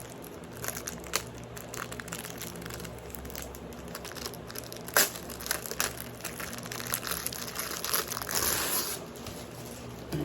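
Packaging being handled and opened by hand: irregular crinkling and crackling, with a sharp snap about five seconds in and a longer, denser burst of crinkling near the end.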